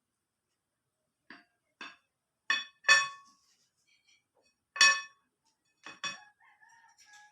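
Cutlery clinking against a plate about seven times at uneven intervals. The two loudest strikes ring briefly.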